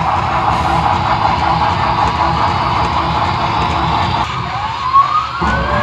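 HO scale model trains running on the layout's track: a steady rolling rumble of wheels and motors. About four and a half seconds in, a tone rises in pitch for about a second, and a steady tone follows at the end.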